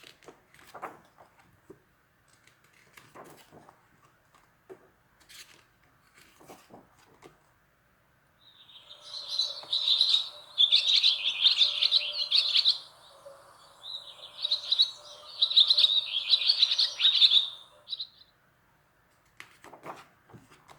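A bird twittering: rapid high chirps in two bouts of about four seconds each, after a few faint clicks and rustles.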